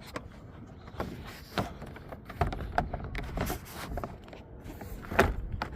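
Plastic car door trim panel being handled and set against the door, with scattered knocks and clicks, the loudest about five seconds in.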